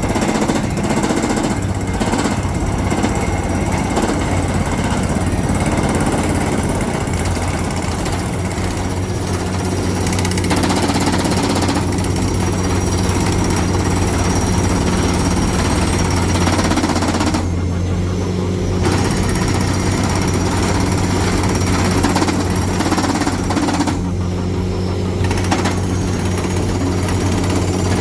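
Heavy percussive rock hammer pounding rapidly and continuously over a steady diesel engine drone; the hammering drops out briefly twice in the second half while the engine keeps running.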